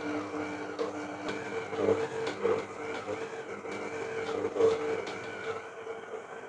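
Electric stand mixer motor running steadily with its dough hook kneading a stiff egg pasta dough of flour and eggs, the whir wavering in a regular rhythm as the hook turns through the dough.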